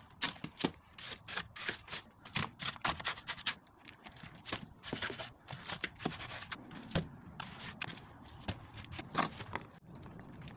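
Repeated irregular scrapes and clicks of hand work at a building site, several a second, with no steady rhythm.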